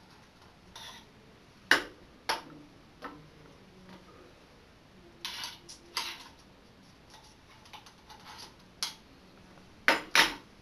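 Scattered sharp clicks and knocks of a drink can and small magic props being handled, with softer rustling in between; the loudest, a quick double knock, comes near the end.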